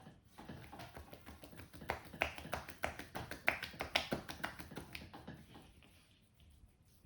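Hands tapping rapidly and rhythmically on a person's head in a percussive barber's head massage, several sharp taps a second, louder in the middle and fading out near the end.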